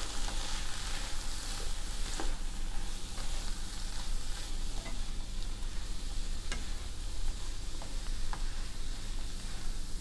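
Chopped mixed vegetables sizzling as they sauté in a pan, stirred and tossed with a spatula. A few sharp clicks of the spatula against the pan stand out over the steady sizzle.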